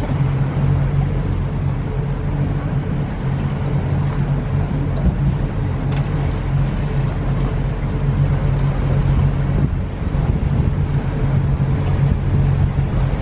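Whale-watching boat's engine running with a steady low hum, with wind buffeting the microphone.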